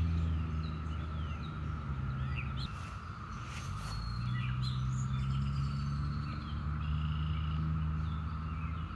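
Brood X periodical cicadas singing in chorus in the trees, a steady high drone, with birds chirping over it and the low steady hum of an airplane underneath.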